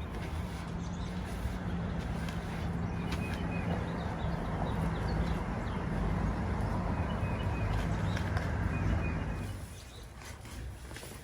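A steady engine rumble that dies away about nine and a half seconds in, with birds chirping.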